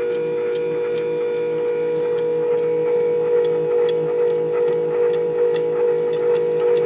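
Stepper motor on a DIY CNC machine running under drive, giving a steady electrical whine with a pulsing lower hum and scattered light clicks.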